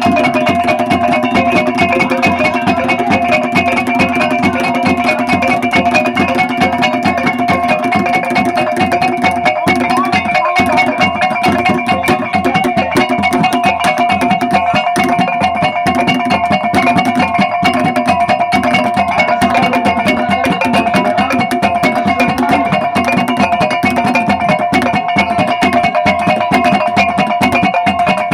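Traditional Ngada gong and drum ensemble (gong gendang) playing: several gongs ring steady pitches over a fast, unbroken drum beat, with no pause or change in level.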